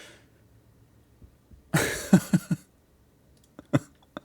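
A man's short vocal outburst, four quick coughing pulses in under a second, followed near the end by a few sharp bangs.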